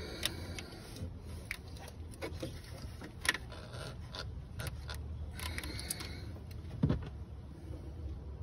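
Small clicks and rattles from hands working at plastic connectors and hoses in a Vauxhall Corsa's engine bay, with two sharper knocks, about three seconds in and again near seven seconds, over a steady low hum.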